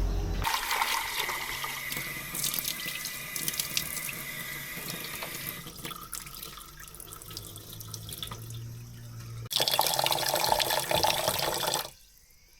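Water running into a pot as rice is readied for cooking, with quieter swishing in the middle. A second strong run of water starts with a jump about 9.5 s in and cuts off about a second before the end.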